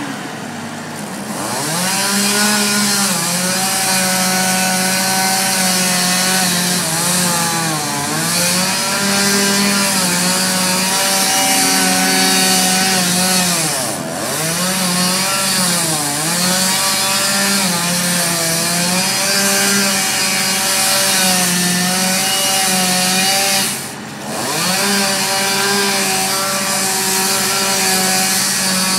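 Stihl chainsaw cutting into wood at full throttle, revving up about a second and a half in. Its pitch sags and recovers again and again as the chain bogs in the cut. Near the end the throttle drops for a moment and comes straight back up.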